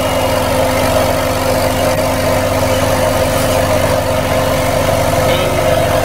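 Crawler piling rig with its vibro hammer on the casing, running steadily: a constant engine drone with a steady hum and a fast, even low rumble.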